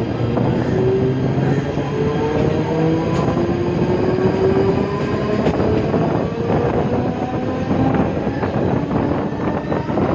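Mumbai suburban electric local train running, heard from beside the open doorway: a steady rush of wheels and air with a whine rising slowly in pitch as the train gathers speed, and scattered clicks of the wheels over the rails.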